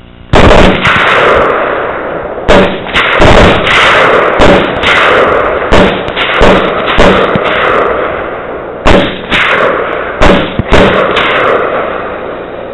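Rapid semi-automatic gunfire from three AR-15 rifles: about twenty shots in quick, overlapping clusters, with short lulls about two and nine seconds in. Each shot trails off in an echo.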